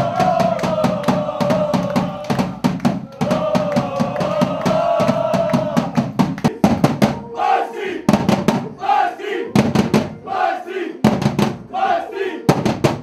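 A group of men singing together in a celebration song over a steady beat of sharp hits. About seven seconds in, the singing turns into a shouted chant, one call about every second, with the hits still going.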